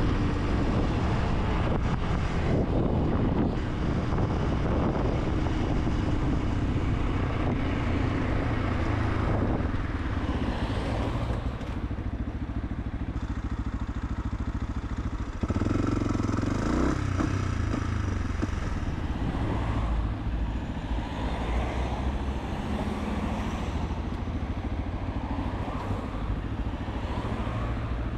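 Fantic 125 supermoto's single-cylinder engine running under way, with wind and road noise; about fifteen seconds in it gets suddenly louder and revs up through the gears.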